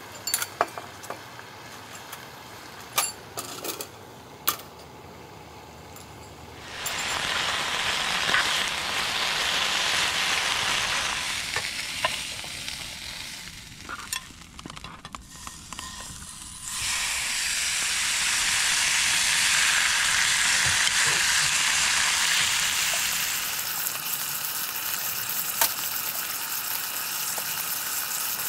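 Food frying in a hot pan: a few light clicks and knocks of utensils, then a loud sizzle that starts suddenly about seven seconds in. The sizzle dies down briefly mid-way, comes back strongly, then settles to a quieter steady sizzle near the end.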